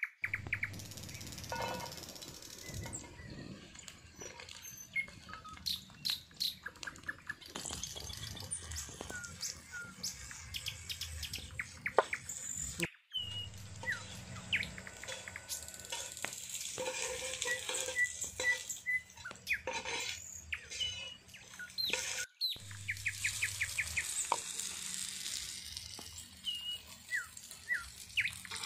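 Food sizzling in oil in a pan over a wood fire, with utensils clicking and scraping, while small birds chirp.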